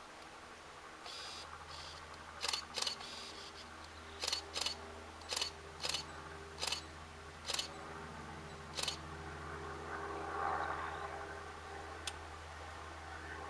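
A run of about nine short, sharp clicks, irregularly spaced over some six seconds, over a steady low hum.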